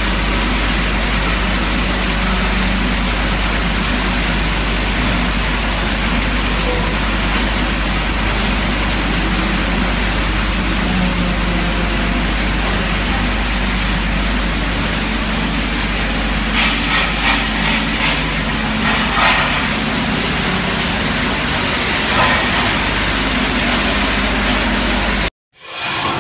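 Automatic metal-polishing machine running, its large polishing wheel spinning over a clamped metal part: a loud, steady rush of noise over a low hum, with a few brief rattling clicks about two-thirds of the way through. It cuts off suddenly near the end, and music begins.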